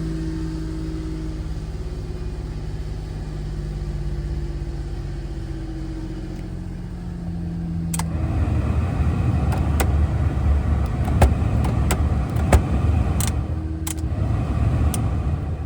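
Nissan Clipper Rio's turbocharged 660 cc three-cylinder engine, fitted with an aftermarket muffler, running with a steady hum. About eight seconds in it turns to a rougher, louder rumble with scattered sharp clicks and knocks.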